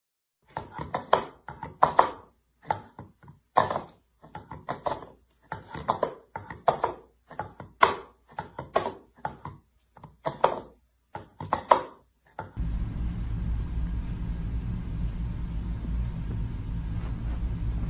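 A cat batting an orange plastic bowl about on a hard floor: a long run of irregular knocks and clatters, about two a second. About twelve seconds in they stop and a steady low rumbling noise takes over.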